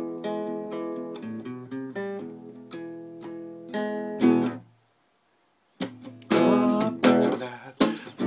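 Acoustic guitar, quite out of tune, played with picked chords whose notes ring on. The playing stops about four and a half seconds in, and after a second's silence it resumes with loud strummed chords.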